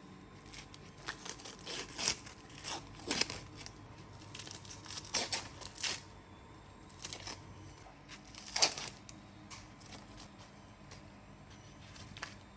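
A run of short, irregular scraping and rustling sounds, bunched in the first half, with the loudest single scrape a little past the middle.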